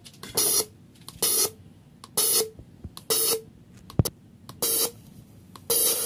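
Fuel injector from an MR18 engine on a bench injector tester, pulsed so that it sprays cleaner from a pressurised can: five short hissing spray bursts roughly a second apart, then a long continuous spray starting near the end. A sharp click comes about four seconds in. The injector is being checked for whether it holds shut between pulses.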